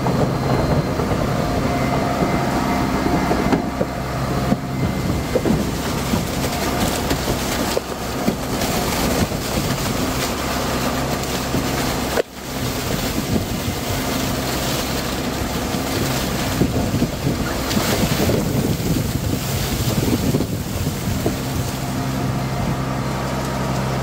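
Heavy farm machinery running steadily, a diesel engine drone with broad mechanical noise and some wind on the microphone. The sound drops out sharply for a moment about halfway through, then carries on as before.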